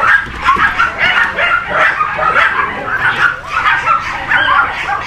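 Young dachshund puppies in a crate whining and yelping together, a continuous chorus of overlapping high-pitched squeals.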